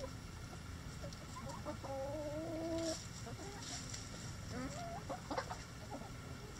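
Backyard chickens clucking, with one drawn-out wavering call about two seconds in that lasts about a second, and a few short clucks later on.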